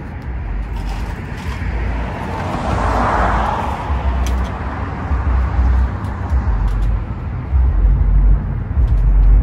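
Traffic noise: a car passes, swelling and fading about three seconds in, over a steady low rumble, with a few faint small clicks.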